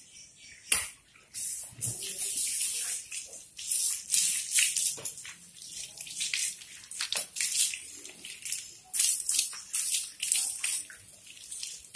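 Water from a garden hose splashing over a soapy dog's coat and onto a wet tiled floor, coming in uneven gushes with a few sharp clicks.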